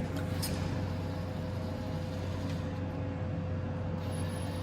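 Steady electrical and mechanical hum of an arcade claw machine running, with a constant low drone and a steady mid-pitched tone.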